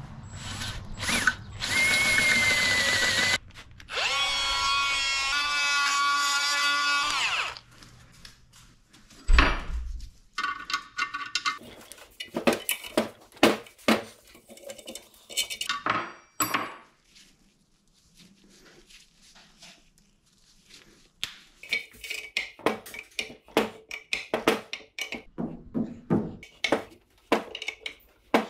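Power drill boring a hole in an exhaust manifold: a first short run, then a steady whine for a few seconds that winds down. It is followed by a thump and scattered clicks and clatter of metal parts being handled.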